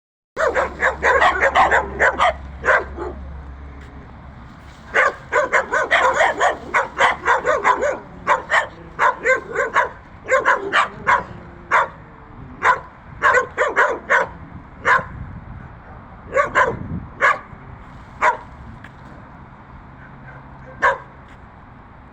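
Dogs barking in rapid volleys of short barks, broken by pauses of a second or more, with the last single bark near the end.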